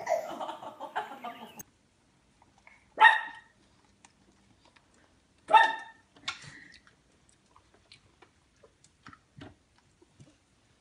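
Dog barking twice, single sharp barks about two and a half seconds apart, with a weaker sound just after the second and faint light taps between. Before them a baby's babbling breaks off about a second and a half in.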